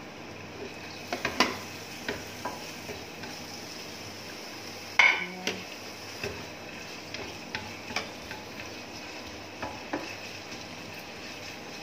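Chicken pieces frying in hot olive oil in a pan, a steady sizzle. Scattered clicks and scrapes of a utensil stirring against the pan, with a louder clatter about five seconds in.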